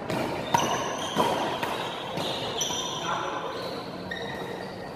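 Badminton doubles rally: two sharp racket strikes on the shuttlecock, about half a second and a little over a second in, with short high squeaks of shoes on the court floor throughout.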